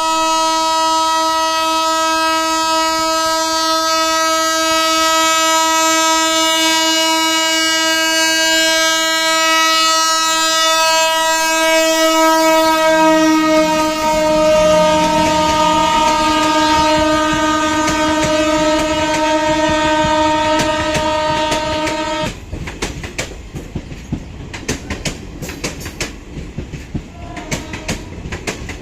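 A WAP-7 electric locomotive's horn sounds one long continuous blast for about 22 seconds, then cuts off suddenly. After it, the train's wheels clatter over the rail joints as the coaches run past.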